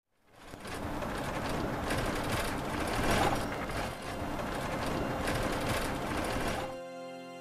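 Vehicle driving along a rough sandy dirt track, heard from inside: a steady rumble of engine and road noise with rattling. It stops shortly before the end, where soft music comes in.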